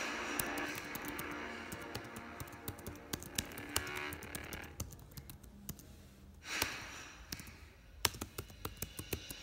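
Typing on a computer keyboard: a quick, irregular run of key clicks, with music playing underneath.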